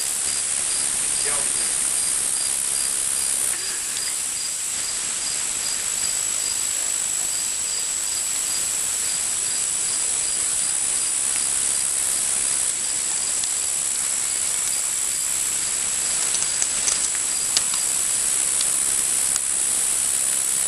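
Insects chirping steadily: a constant high trill with a fainter pulsing chirp repeating evenly a few times a second.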